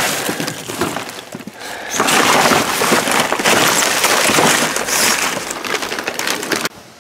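Plastic bags and bubble wrap crinkling and crackling right at the microphone as hands rummage through packaged goods in a dumpster. The crackle eases for a moment after about a second, comes back loud, and stops suddenly near the end.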